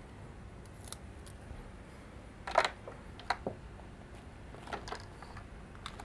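A small plastic buzzer being handled and pressed onto the inside of a plastic headlight cowl: a few scattered light clicks and taps, the loudest about two and a half seconds in.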